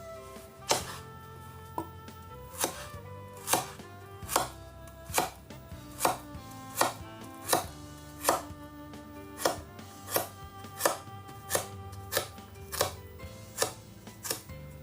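Knife slicing a cucumber on a cutting board, a sharp chop a little more often than once a second at a steady pace.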